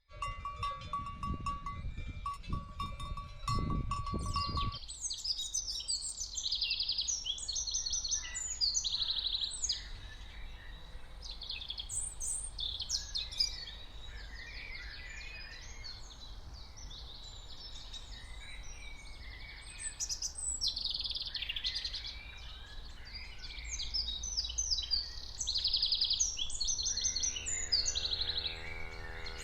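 Wild birds singing and chirping over a low background hum. The first few seconds hold low thumps and a steady tone, and a cow starts to moo near the end.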